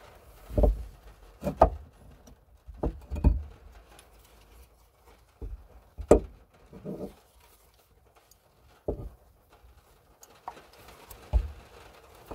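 Plastic boot-opening switch and handle unit of a Volkswagen Golf Mk5 being twisted and worked loose in its tailgate opening: a series of irregular knocks and clicks, the loudest about six seconds in.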